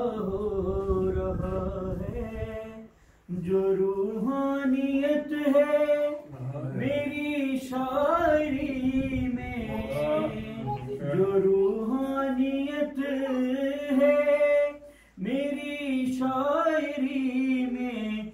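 A man singing a manqabat, an Urdu devotional poem, solo and unaccompanied, in long drawn-out phrases that break off briefly twice.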